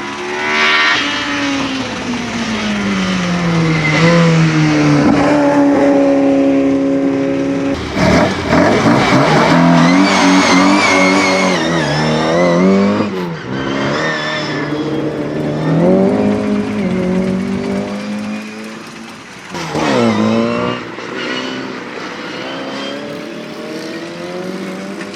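Racing car engine revving hard on a sprint course, its pitch climbing through each gear and dropping at every shift and lift for corners. It is loudest as the car passes close, about a third of the way in.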